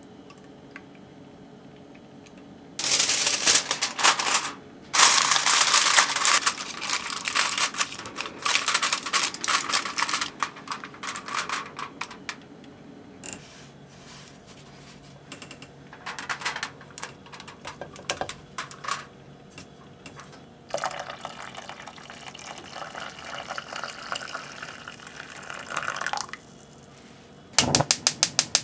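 Aluminium foil crinkling as it is pressed around an enamel container, then water poured into a pot for a water bath. Near the end comes a knock and a quick run of clicks.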